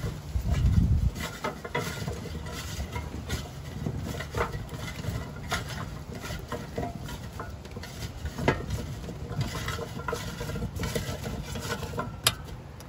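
Raw butternut squash cubes being tossed by hand in a metal air fryer basket: irregular soft clicks and knocks of the oiled cubes against each other and the basket. A low rumble in the first second.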